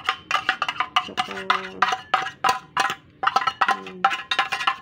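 A fork tapping and scraping inside an opened tin can of tuna flakes, working the tuna out onto a plate. Quick, irregular metallic clinks and knocks, with a short low tone heard twice.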